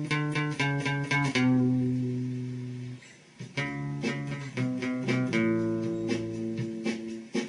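Guitar music: a quick run of picked notes, then longer held notes, a short break about three seconds in, then picking starts again.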